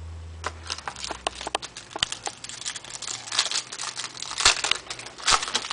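Foil wrapper of a baseball card pack crinkling and tearing as it is peeled open by hand, a run of crisp crackles with a couple of louder snaps near the end.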